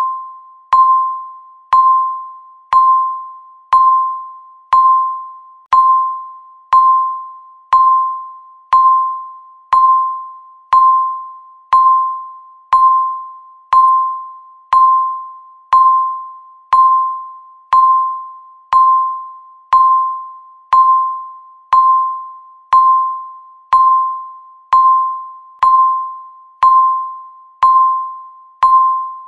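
Countdown timer's electronic beep sounding once every second: a single clear tone that starts sharply and fades away before the next.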